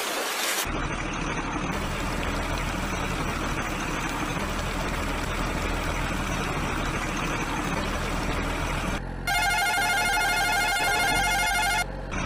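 Dubbed-in truck engine sound running steadily, after a brief splash of water at the start. About nine seconds in, an electronic beeping melody like a ringtone or musical horn plays for nearly three seconds, then the engine sound carries on.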